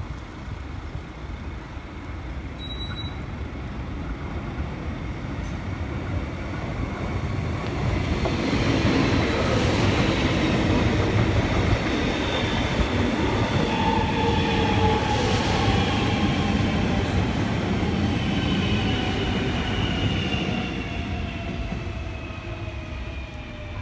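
Alstom X'Trapolis 100 electric suburban train passing close by. The rumble of its wheels on the rails builds, is loudest for about ten seconds in the middle, then fades as it moves away. Through the loud part a whine from the motors slides slowly down in pitch as the train slows toward the station.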